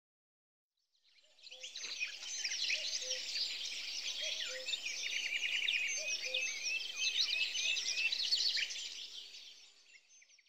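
A chorus of many birds chirping and singing together, dense overlapping high chirps and quick rising and falling whistles. It fades in about a second in and fades out near the end.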